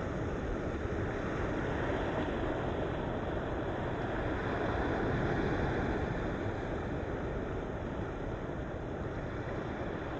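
Ocean waves breaking in a continuous wash of surf, swelling slightly in the middle and easing off again.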